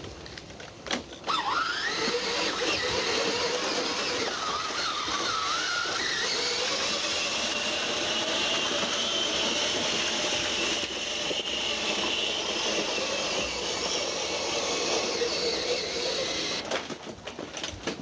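A motor whines up in pitch about a second in, then runs steadily with a slightly wavering whine. It stops shortly before the end.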